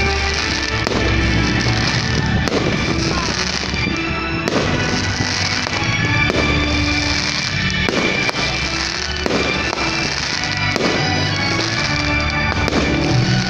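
Fireworks going off in quick succession, many bangs and crackles at irregular intervals, over loud show music.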